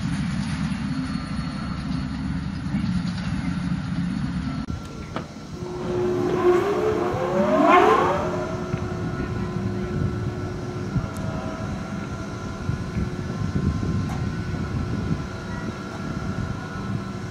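Oil-well pump jack's electric motor and belt drive running with a steady low rumble. About five seconds in, a second pump jack's motor on a Powerboss soft-start controller ramps up under a slow controlled start: a whine rises in pitch over a couple of seconds, then holds as steady tones while the unit runs.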